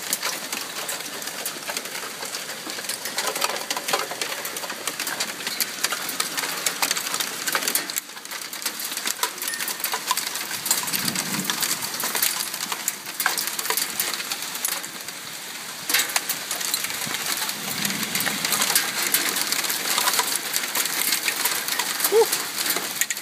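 Hailstones pelting the ground: a dense rattle of sharp clicks and ticks over a steady hiss.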